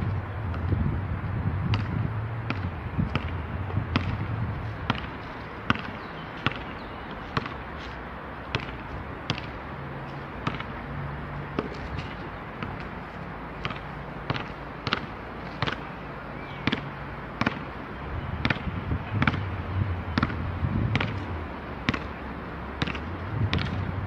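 Basketball being dribbled on an outdoor asphalt court: a long run of sharp bounces, about two a second, over a steady low rumble.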